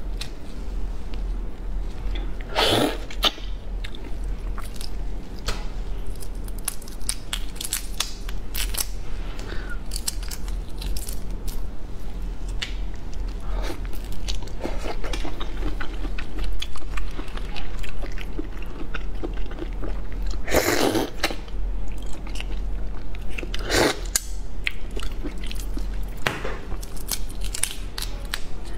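Close-miked soy-sauce shrimp being peeled and eaten: shells crackling and tearing between the fingers, with wet chewing and a few louder wet slurps.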